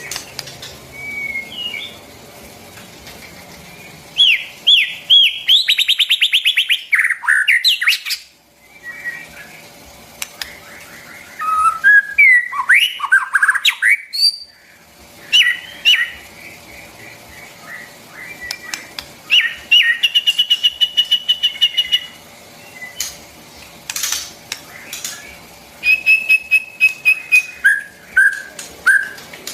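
White-rumped shama singing: loud, varied phrases of clear whistled notes that sweep up and down, mixed with fast runs of repeated notes, coming in bursts with short pauses between.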